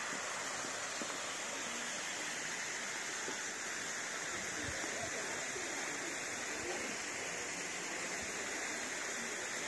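Steady rush of an artificial waterfall pouring down a rock face into a pond.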